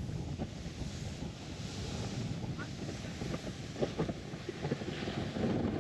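Wind buffeting the microphone over the steady low rumble of a sled sliding down a snowy hill, with a few faint scrapes and clicks.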